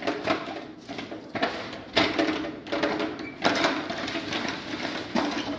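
Long-handled ladle working rice in a large aluminium pot of boiling water and ghee, making a series of irregular short scraping strokes, about one or two a second.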